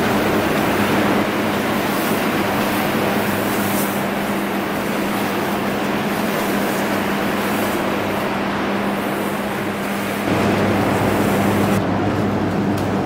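Electric arc furnace running: a loud, steady crackling noise from the arcs over a constant low electrical hum, getting abruptly louder about ten seconds in.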